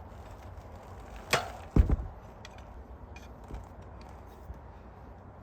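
Two sharp knocks about a second in, the second a heavier clunk with a brief rattle, then a few light clicks: a rusty old bicycle pedal being handled and knocked.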